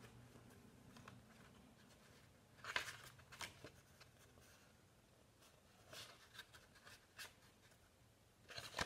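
Mostly near silence, broken by a few brief, faint paper rustles as the pages of a small colouring booklet are turned and handled, the clearest about three seconds in.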